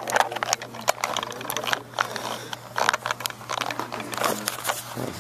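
Handling noise: rapid irregular clicks and rustling of things being handled close to the microphone, over a steady low hum.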